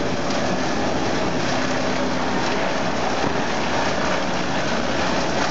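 Industrial wood chipper running steadily: a constant engine hum under even mechanical noise.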